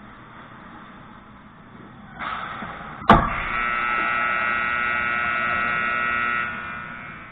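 A hockey puck shot into the goal hits the net frame about three seconds in with one sharp, loud crack. Right after it a steady buzzing tone sounds for about three seconds, then fades.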